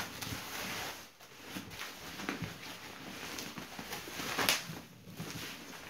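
Bubble wrap rustling and crinkling as it is pulled off a package by hand, with sharper crackles at the start and about four and a half seconds in.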